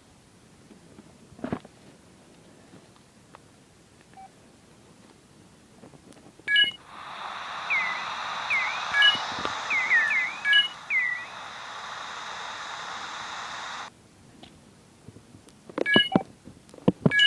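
Phone button clicks with short key beeps, about six seconds in and again near the end. Between them comes about seven seconds of steady hiss with a run of short falling chirps.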